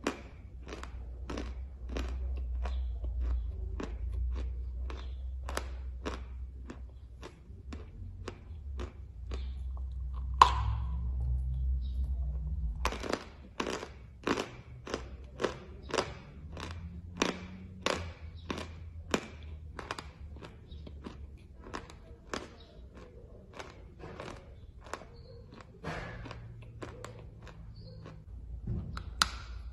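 Chewing a mouthful of edible chalk (pressed chalk tiles), with a steady dry crunch a little over twice a second; a single sharper click about ten seconds in.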